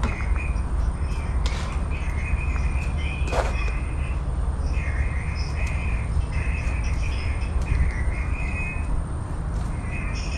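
Birds calling in short, repeated phrases every second or two, over a steady low rumble, with one sharp click about a third of the way through.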